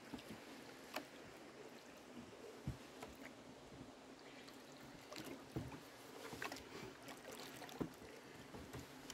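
Faint water sounds of a small rowboat on calm water, with a few light knocks scattered through.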